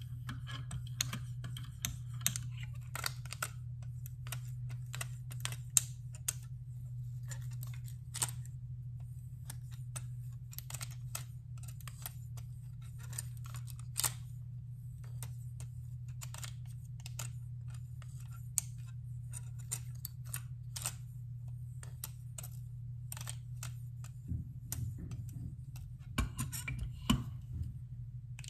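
Irregular clicks and small knocks of a folding knife and a KME sharpener's metal clamp being handled, with a cluster of heavier knocks near the end as the knife is clamped back into the jaws. A steady low hum runs underneath.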